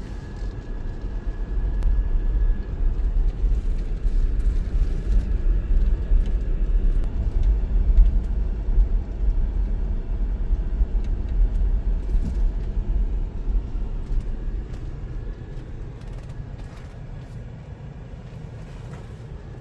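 A car driving, with a low, steady rumble of road and engine noise that builds over the first several seconds and then eases off toward the end, as if slowing down.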